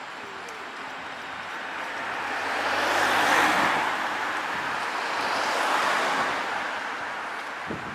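Two cars passing close by one after the other, their tyre and engine noise swelling and fading away. The first is loudest about three seconds in, the second about six seconds in.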